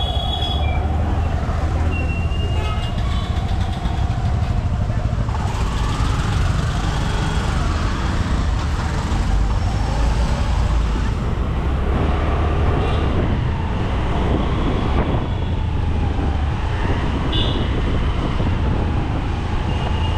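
Street traffic heard from a bicycle: passing motor-vehicle engines whose pitch rises and falls, a few short horn toots, over a steady low rumble.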